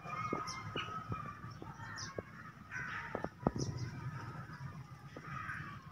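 Birds calling here and there over faint background noise, with a few light clicks and knocks.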